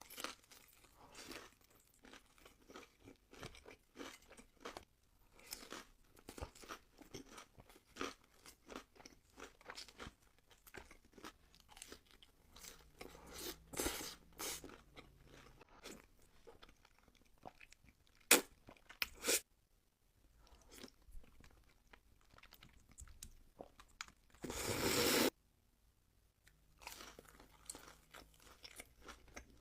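Close-miked chewing and crunching of crispy food, with irregular crunchy bites throughout. There are two sharp louder clicks a little past halfway, and a loud noise lasting about a second near the end.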